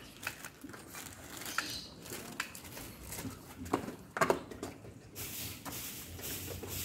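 Plastic bag rustling, with scattered light clicks and knocks as a tied bag of iced dessert is handled.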